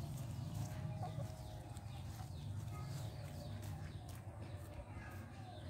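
Faint animal calls: short falling chirps and a few soft arched calls over a steady low hum.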